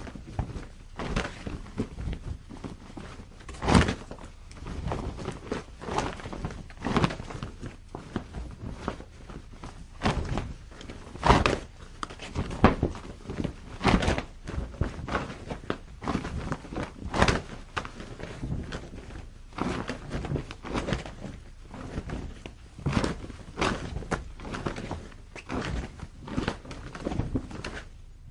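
Heavy cloth flapping on a clothesline in gusting wind: irregular thick snaps and thumps, several a second, some much louder than others.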